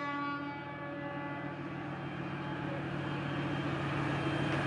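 The last of a ship's horn blast fading away in the first second, then the steady low hum of the fishing vessel Northwestern's diesel engines running at the dock.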